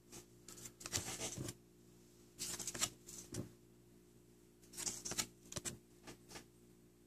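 Glossy hockey trading cards sliding and flicking against each other in the hands as they are flipped through, in three short bursts of rustling and clicking.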